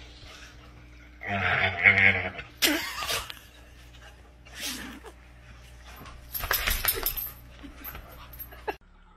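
Dog vocalizing in several short bursts while scrambling over a man on a sofa, with a cluster of clicks and scuffling about two-thirds of the way in.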